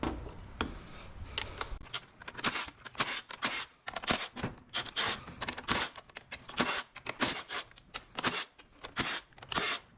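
Hand ratchet clicking in short, repeated bursts as bolts are backed out of the valve body of a 48RE automatic transmission.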